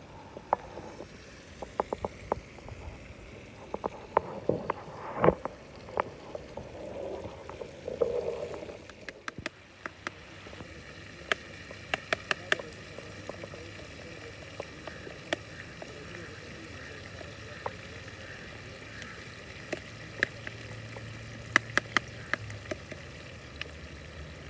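Cooking utensils clicking and knocking irregularly, busiest in the first few seconds and with another run of clicks near the end, over a steady background hiss.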